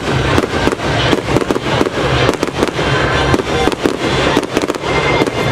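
Aerial fireworks bursting overhead: a dense, rapid string of pops and bangs with crackling.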